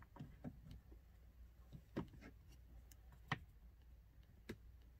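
A few faint, scattered plastic clicks and taps as a blend door actuator and its gear are handled behind the dashboard, the sharpest click a little past three seconds in.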